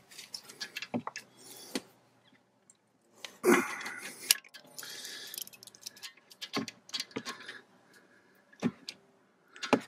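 Socket ratchet and open-end wrench on a brake caliper bolt being loosened: scattered metal clicks and clinks of the tools, with a louder handling knock and rustle about three and a half seconds in.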